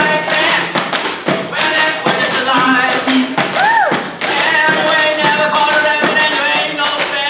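Rhythmic tapping and knocking on everyday objects played like percussion music, mixed with pitched tones and a rising-then-falling glide a little past the middle.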